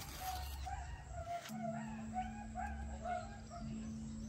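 Chickens calling in a run of short, wavering notes, with a faint steady hum that starts about one and a half seconds in.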